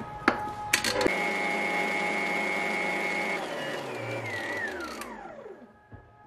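Stand mixer with a balloon whisk beating egg whites to a coarse foam: a few clicks, then the motor starts and whirs at a steady pitch for a couple of seconds. About halfway through it is switched off and its whine falls in pitch as the whisk spins down and stops.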